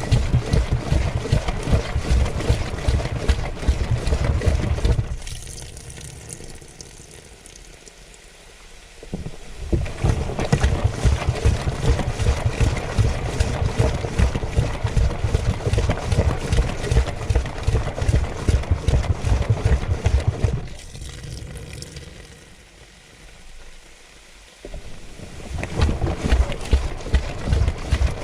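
Washing machine drum tumbling a wet load, with water sloshing and rapid knocks and thuds as the load and the camera are tossed about. The tumbling stops twice for several seconds, leaving only quieter water sounds, then starts again.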